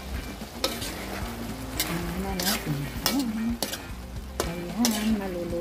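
Spatula stirring pork, potato and carrot pieces in a wok of sizzling sauce, with about seven short scraping strokes against the pan.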